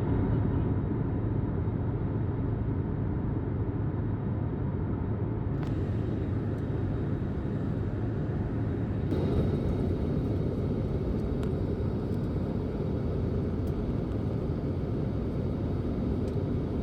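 Steady low rumble of a vehicle in motion, even throughout, with slight shifts in tone at a couple of points.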